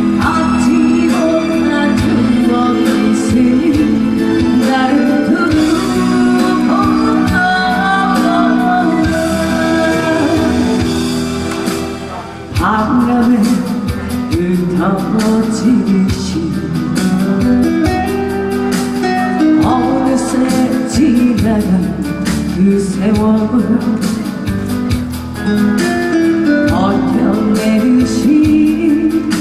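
A slow, gentle song: a singer over loud backing music, with a brief drop in level about twelve seconds in.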